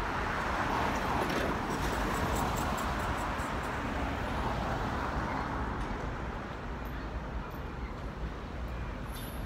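City street traffic noise, with a vehicle passing that swells over the first few seconds and then fades away.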